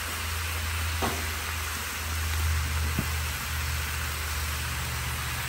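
Corned beef sizzling on a hot Blackstone flat-top griddle, a steady frying hiss as the meat browns on its first side, over a low steady hum.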